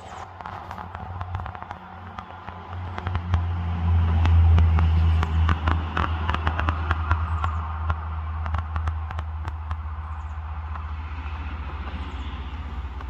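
A low, steady mechanical rumble, like an engine, that swells about three seconds in and then eases to a steady level, with many sharp crackles and clicks over the first ten seconds.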